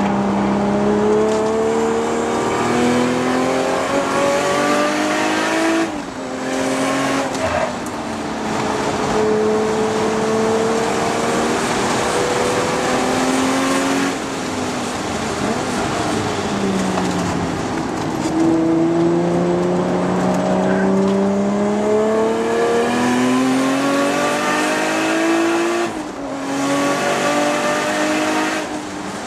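Toyota Supra MKIV's 2JZ-GTE straight-six, heard from inside the cabin, being driven hard on track. The engine note climbs through the revs and breaks off sharply at each lift or gear change, about three times, then climbs again.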